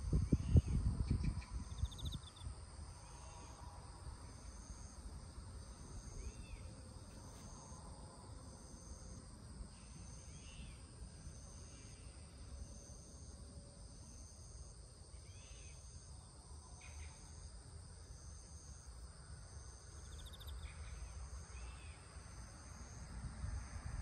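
A steady, high-pitched insect chorus with a regular pulse about once a second. Wind buffets the microphone in the first two seconds and again near the end.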